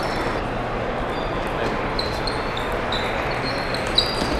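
Table tennis balls pocking off paddles and tables: a series of sharp clicks, each with a short high ring, the loudest about four seconds in. Underneath runs the steady din of a large hall full of other tables and voices.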